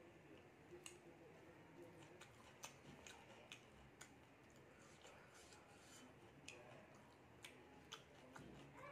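Near silence with faint, irregular small clicks of someone eating by hand: fingers picking at food on a plate and mouth sounds of chewing.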